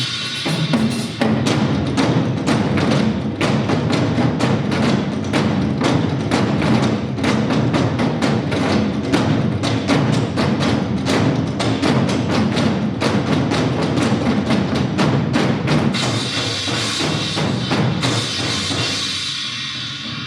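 Nanta ensemble drumming: many drums struck fast and hard with sticks in dense, driving rhythms, with sharp clicking hits mixed in. Near the end the deep drum strokes thin out and a brighter hiss comes up.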